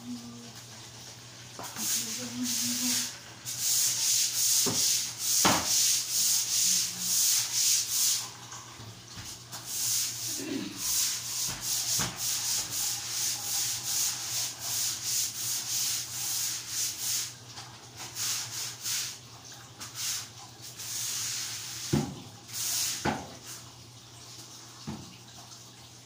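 Long-handled scrub brush scrubbing a tiled floor in bursts of rapid back-and-forth strokes, with short pauses and a couple of knocks near the end.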